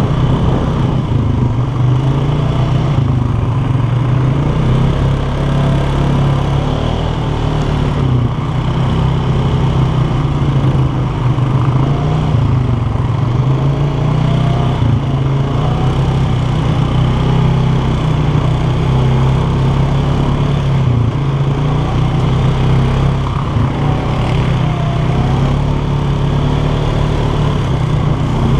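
ATV (four-wheeler) engine running while being ridden, its pitch rising and falling a little with the throttle.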